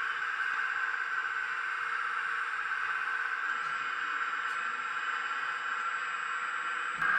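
Hydraulic pump of a 1/15-scale RC Hitachi ZX135 excavator running with a steady whine while the arm is worked.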